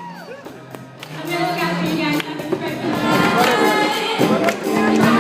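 Live ensemble music: a group of voices singing held notes over percussion hits, coming in louder about a second in.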